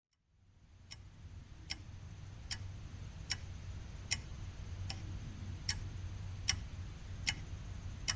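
Steady, even ticking, a little more than one tick a second, over a low hum that fades in from silence at the start.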